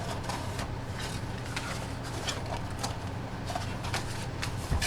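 Light handling sounds from the box-break packaging: scattered soft clicks and rustles over a steady low hum, with a sharper knock near the end.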